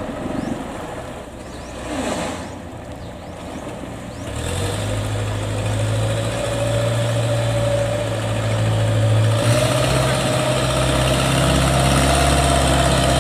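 Engine running on a small river ferry carrying a Kubota DC-93 combine harvester, its steady hum stepping up in pitch and loudness about four seconds in and again later as it gathers way.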